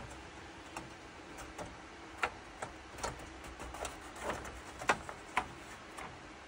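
Laser-cut plywood parts handled on a laser cutter's metal honeycomb bed: a dozen or so irregular light clicks and taps as the pieces are pressed and lifted out of the sheet, the loudest about five seconds in.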